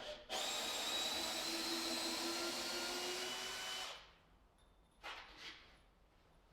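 A small electric power-tool motor runs steadily for about three and a half seconds, then spins down and stops.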